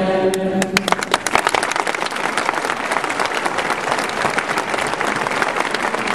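A crowd applauding: scattered claps about half a second in quickly build into dense, steady clapping, as the tail of a sung Amen dies away about a second in.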